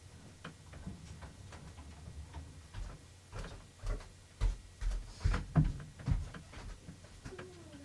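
Scattered clicks and knocks of objects being handled, with a run of heavier thumps from about four to six seconds in and a short creak near the end.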